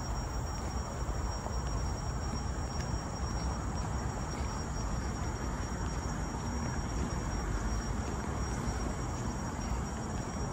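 A steady, high-pitched insect call holding one unbroken tone over a low background rumble.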